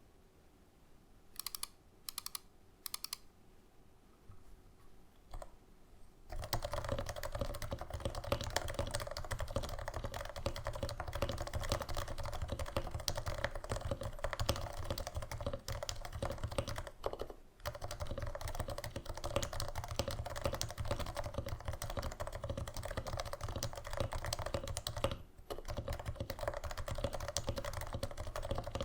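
Typing on a Norbauer Norbaforce Mk. III Topre keyboard with stock 45g domes, silenced with Deskeys #3 rings. A few separate keystrokes come first, then fast continuous typing starts about six seconds in, with two short pauses.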